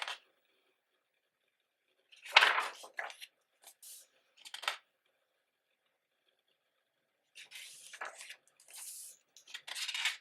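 Pages of a 288-page photobook being turned and handled: a few short papery rustles and flips with quiet gaps between, the loudest about two seconds in.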